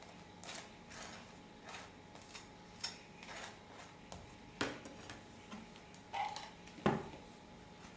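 Faint scattered clicks and light scrapes of a table knife spreading mayonnaise on a burger bun and dipping into a plastic mayonnaise jar, with two sharper taps about four and a half and seven seconds in.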